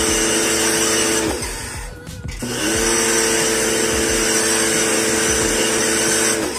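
Small electric pressure-washer pump running steadily with the hiss of the water spray while aircon parts are washed. It cuts out about 1.3 s in as the trigger is released, then spins back up a second later and runs until just before the end.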